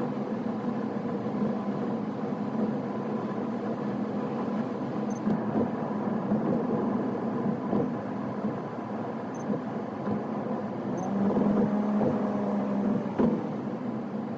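Steady road and engine noise of a car, heard from inside the cabin while driving, growing louder for a couple of seconds near the end.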